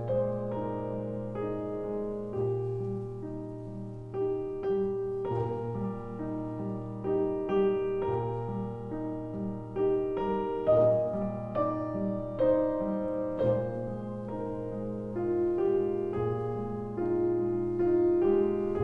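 Background piano music: a steady melody of single notes over a held low bass note.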